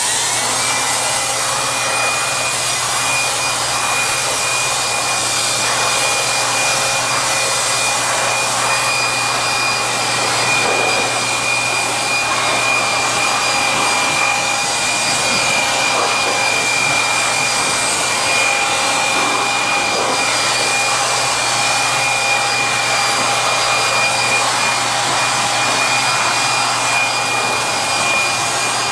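Electric air blower starting up and running steadily, blasting dust out of a freezer's condenser coil: a rush of air under a steady high motor whine.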